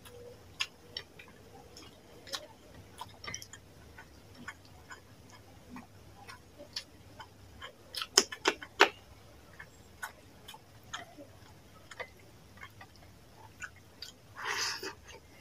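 Close-miked mouth sounds of a person eating rice and fish curry by hand: wet chewing, lip smacks and clicks. There is a cluster of loud crunches about eight seconds in as a raw green chilli is bitten, and a longer wet slurp near the end as a handful of rice goes into the mouth.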